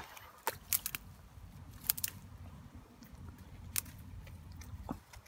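Scattered faint clicks and crackles of dry stems and grass being handled at a ditch bank, over a low rumble.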